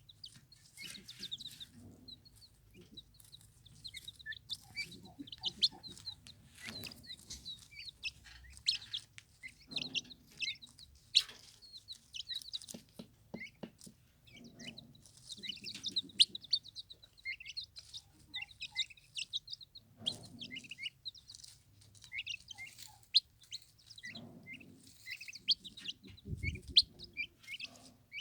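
Turkey poults peeping repeatedly in short high chirps while feeding, with scattered lower fowl calls and a low thump near the end.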